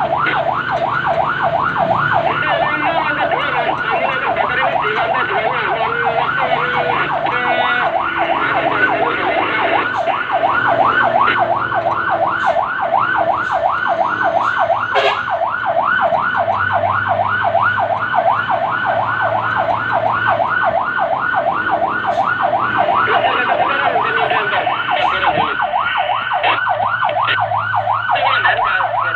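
Fire truck's electronic siren on a fast yelp, sweeping up and down about three times a second without a break, with the truck's engine humming low underneath.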